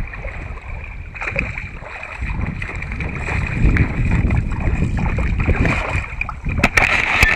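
Wind buffeting an outdoor microphone: a steady low rumble that swells from about two seconds in. Near the end come a few sharp clicks and knocks as a hand handles the camera.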